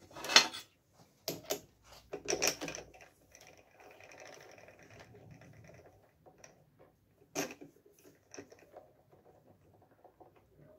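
Scattered metal clicks and knocks as a small steel ring is handled and set into the jaws of a metal lathe's chuck, which is then tightened with its chuck key. The loudest knock comes about a quarter second in, another about seven and a half seconds in, with a faint steady hum in between.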